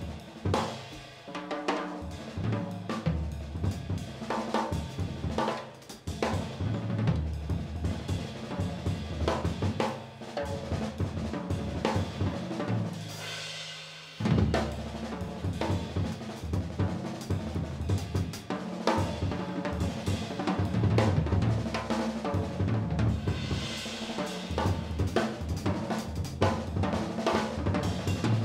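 Drum kit played hard with sticks: dense snare, tom and bass drum strokes mixed with cymbal crashes. The cymbals swell about halfway, then a short drop in the drums is broken by a sudden heavy hit, and they swell again near the end.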